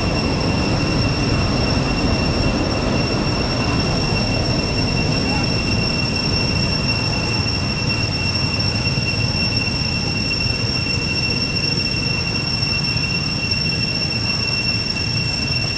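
Steady outdoor forest ambience: an unbroken high-pitched insect drone over a low, even rumble, with no distinct events.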